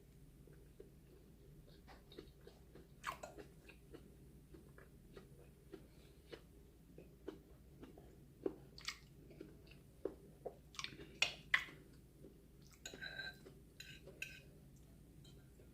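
A person chewing and biting food close to the microphone: faint, irregular wet mouth clicks and crunches. A brief ringing clink comes about two seconds before the end.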